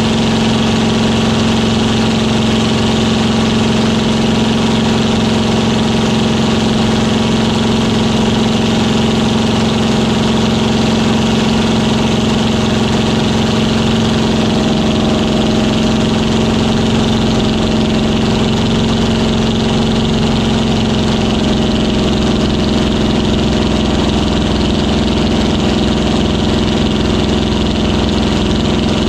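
Yak-3 warbird's piston engine heard from inside the cockpit, running steadily at high power in flight, a constant drone with a rushing hiss over it.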